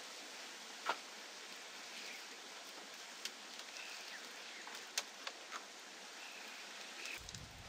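Split bamboo strips clicking and tapping as they are laid on a shelter roof: a few sharp knocks, three in quick succession about five seconds in, over a steady outdoor hiss with a few faint chirps.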